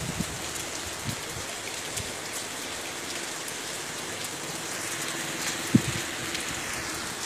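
Heavy rain falling steadily, an even hiss of rain on surfaces, with one brief knock a little under six seconds in.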